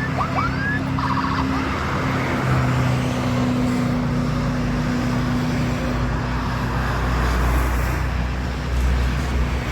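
Highway traffic: engine drone and tyre noise from passing heavy vehicles, with a deeper rumble building about six seconds in. A few short rising whistle-like glides come right at the start.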